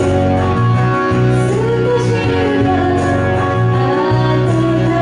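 A woman singing a slow song live into a microphone over amplified accompaniment, her gliding melody above steady, sustained low chords.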